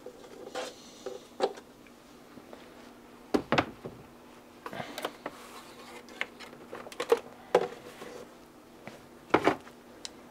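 Handling noises at a workbench: scattered light clicks, taps and a few sharper knocks as a plastic model-aircraft engine cowl and paper template are moved about. A faint steady hum comes in about a third of the way through.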